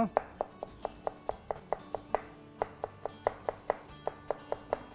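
Kitchen knife chopping through cucumber onto a cutting board in thin slices, a quick steady run of knocks about four to five a second, over background music.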